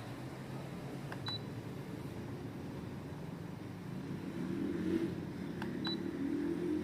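Two short, high electronic beeps about four and a half seconds apart, each just after a small click: the ultrasonic diffuser's button being pressed and beeping in reply. A low, steady background hum runs underneath.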